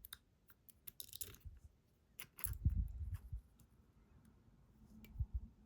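Small lock pins and springs being handled and loaded back into the chambers of a pin-tumbler lock during reassembly: scattered light metallic clicks and taps, a short scrape about a second in, and a few dull bumps of handling around the middle.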